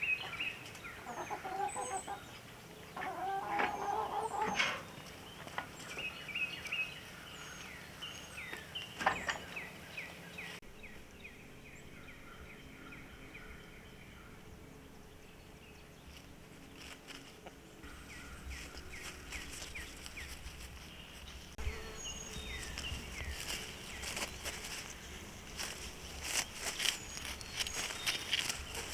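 Backyard hens clucking in short chirps, with scattered sharp clicks.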